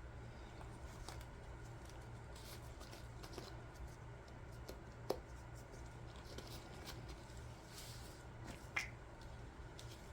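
Quiet, small handling sounds: scattered light clicks and rustles from hands working with resin molds and tools, the sharpest click about five seconds in, over a low steady hum.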